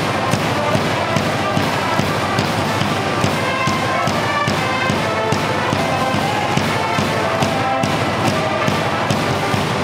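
A student orchestra plays a brisk, march-like cheer song, with a large drum struck on a steady beat of about two and a half strokes a second.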